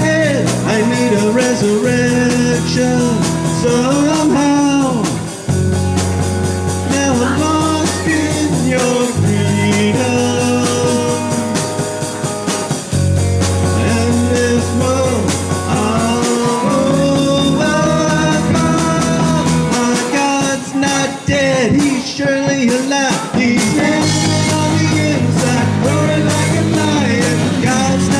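Live band playing a rock-style song: drum kit, bass guitar, electric guitar and keyboard, with held chords that change every few seconds and a wavering sung melody above.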